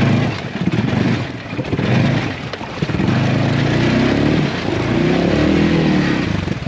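ATV engine revving unevenly as it pushes through deep water. The first few seconds are choppy; after that the engine note holds steady, its pitch rising and falling with the throttle.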